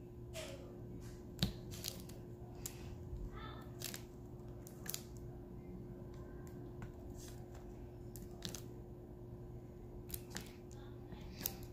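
Diamond-painting drill pen and multi-placer tray pressing resin drills onto the canvas: scattered small clicks and ticks at an uneven pace, over a steady low hum.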